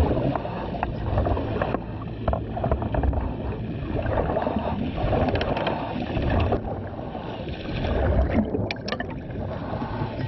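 Underwater rumble and gurgling heard through a diver's camera housing as a suction dredge hose digs into the seabed, with the level swelling and easing and a few short clicks.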